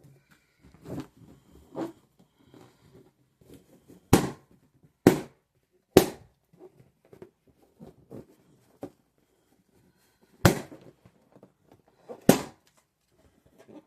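Balloons popping: five sharp bangs, three about a second apart, then two more a few seconds later. Quieter squeaks and rustles of the balloons being handled come in between.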